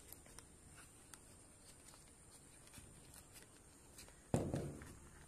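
Handling noise: faint scattered clicks and taps as wired earphones and their cable are handled, with one loud knock about four seconds in.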